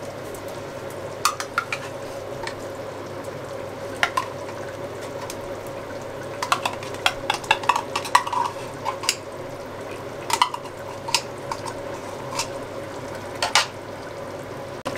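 A utensil stirring a simmering beef and tomato sauce in a pan, with irregular clicks and knocks against the pan over a steady sizzle.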